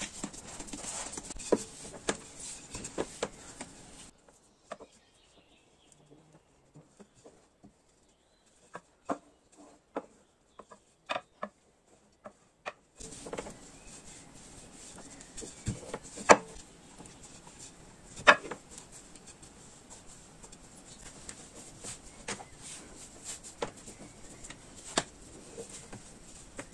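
Yeast dough being pressed flat by hand and rolled out with a wooden rolling pin on a table: soft pats and handling with scattered sharp taps and knocks, two of them louder past the middle.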